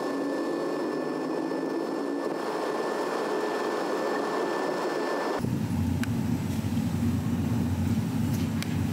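Jet airliner engines heard from a window seat over the wing during the takeoff climb: a steady, full engine roar with a faint whine. About five seconds in it cuts abruptly to a lower, deeper vehicle rumble.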